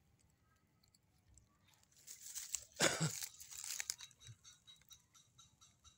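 Dry leaves and brush crackling and crunching as they are pushed through, starting about two seconds in, loudest about a second later, then tapering off into scattered crackles.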